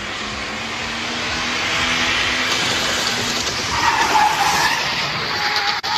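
Ford AU Falcon spinning 360s: engine held at high revs while the rear tyres spin and skid, the tyre noise building louder toward the middle.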